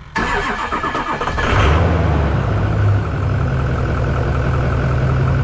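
2003 Ford F350's 6.0-litre Power Stroke V8 diesel cranking on the starter for about a second and a half, then catching and settling into a steady idle, with a brief rise in revs just after it fires. It starts right up after sitting unstarted for over a month.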